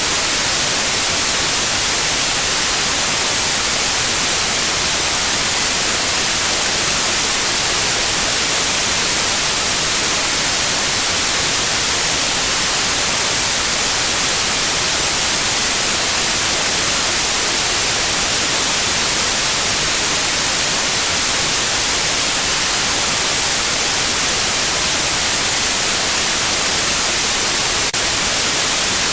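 Synthetic white noise with a steady high-pitched 9645 Hz sine tone over it, a tinnitus sound-therapy signal. The tone stops about eleven seconds in, leaving only the hiss, and returns about twenty seconds in.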